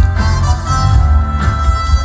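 Live band playing loud music with heavy bass, heard from among the audience; a long high note is held from about a third of the way in.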